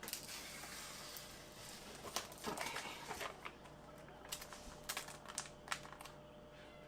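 Faint handling of a peel-and-stick plastic wall tile: a soft crinkling rustle for about the first two seconds, then scattered light taps and clicks.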